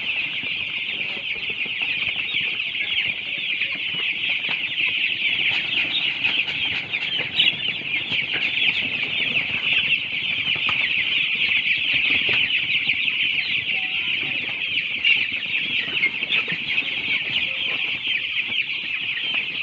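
A large flock of young chicks peeping nonstop: many short, high, falling peeps overlapping into a dense, steady chorus.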